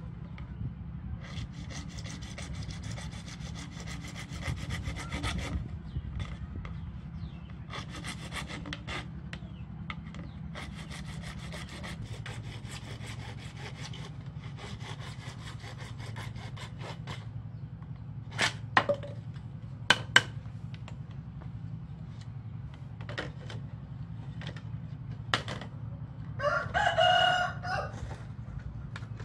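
A thin wire drawn quickly back and forth around a PVC pipe, friction-sawing through the plastic in several runs of rapid rasping strokes with pauses between, followed by a few sharp clicks. A rooster crows once near the end.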